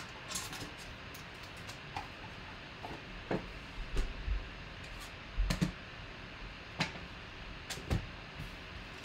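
Scattered light clicks and taps from a cardboard trading-card box and foil pack being handled and set down on a tabletop, with soft low thumps about four and five and a half seconds in.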